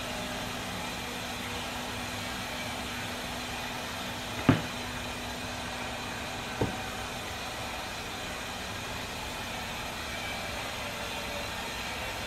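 Steady rushing noise with a low hum underneath that fades out about halfway through, broken by two sharp knocks about two seconds apart.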